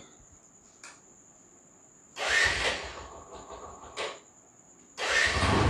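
Crickets chirring faintly in a thin steady high tone. Noisy rushes break in over them: a short one about two seconds in, a brief one about four seconds in, and a louder one with a low rumble from about five seconds.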